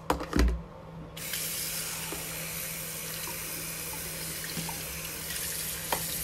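A couple of sharp knocks, then about a second in a bathroom sink tap turns on and runs steadily, the water splashing into a small stainless steel bowl being rinsed out.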